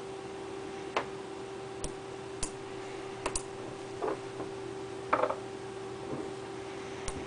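Small neodymium magnet spheres clicking together as clusters of balls snap onto a magnet-ball structure. There are about eight sharp, irregularly spaced clicks, with a short rattling cluster about five seconds in.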